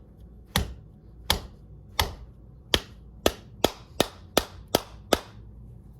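Ten hammer blows on the stuck spindle of a 1981 Craftsman/Sherline micro lathe, driving it out through its headstock bearings. The first few come slowly, then they quicken to about three a second.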